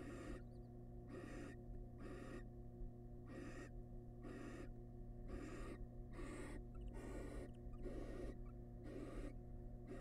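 Barn owls in a nest box giving rasping, hissing begging 'snores', a short hiss repeated about once a second. A steady low hum runs underneath.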